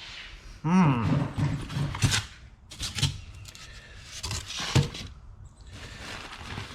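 Items being rummaged through in a cardboard box: rustling and scraping with several sharp knocks. A brief voiced sound, a grunt or hum, comes about a second in.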